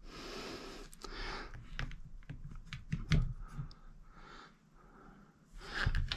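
The flintlock lock of a Brown Bess musket being worked loose and lifted out of its wooden stock: scattered light metal clicks and taps with soft handling noise, the loudest tap about three seconds in.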